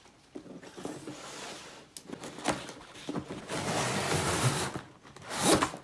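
A cardboard box being cut open with a knife and pulled apart: rustling, scraping and sliding cardboard with scattered clicks, and a louder scrape near the end.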